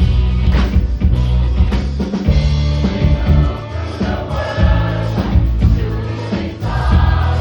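Mixed choir singing a rock song, over an accompaniment with a strong bass line and drums.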